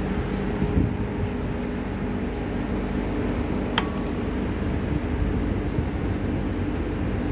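A steady low mechanical hum, with one sharp click a little under four seconds in as the motorcycle's ignition key is turned on.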